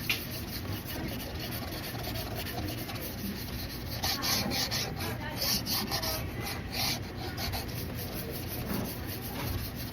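Stainless steel cleaver blade being stroked back and forth on a 2000-grit glass whetstone: a steady, repeated scraping that grows louder for a few seconds in the middle.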